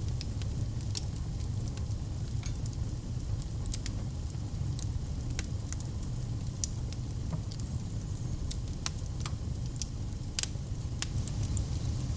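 Wood fire crackling: irregular sharp snaps and pops scattered over a steady low rumble of burning.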